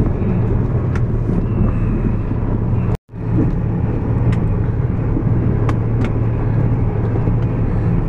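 Kenworth logging truck's diesel engine running steadily under way, heard from inside the cab, with a few light rattles. The sound cuts out for a moment about three seconds in.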